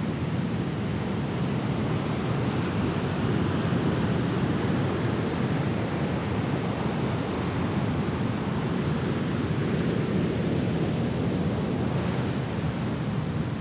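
Huge ocean waves breaking: a steady, low rushing noise of heavy surf mixed with wind.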